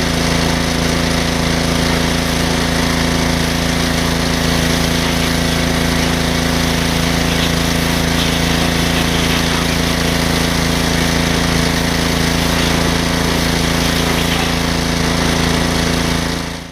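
Pressure washer running steadily with a loud, even hum and hiss as it sprays down a cast-iron Ford FE V8 engine block, flushing the cylinders and water jackets. It stops abruptly just before the end.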